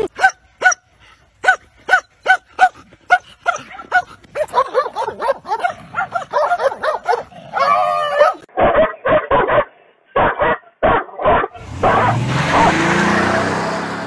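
Dogs barking: a regular run of sharp barks, about two and a half a second, then a busier stretch of barks and yelps. After that comes a few seconds of short, duller barks, and near the end a louder continuous noisy stretch.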